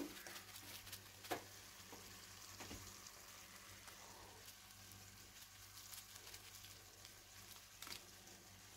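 Faint steady hiss and low hum with a few soft clicks and taps; the sharpest click comes about a second and a half in.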